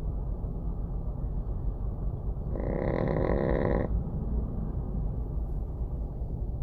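Small dog snoring: one drawn-out pitched snore starting about two and a half seconds in and lasting just over a second, over a steady low rumble.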